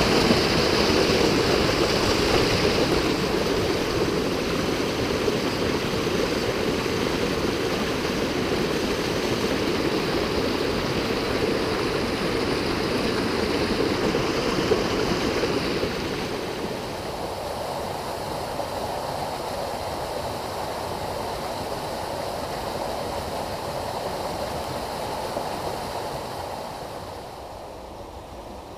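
Mountain stream pouring over a small rocky cascade: a steady rush of white water, a little quieter from about sixteen seconds in and quieter again near the end.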